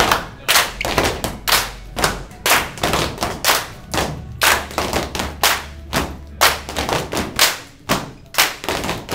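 Step dancers stomping and clapping in unison: sharp, even beats about twice a second.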